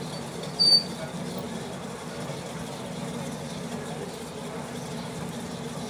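Steady low background hum, with one short, loud, high-pitched beep just under a second in.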